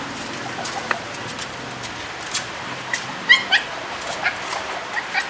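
Caged puppy whimpering in short, high-pitched cries, the clearest a pair about three seconds in, with a few sharp clicks between.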